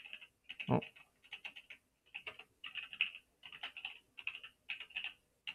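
Computer keyboard typing: quick bursts of key clicks, with one heavier, deeper thud just under a second in.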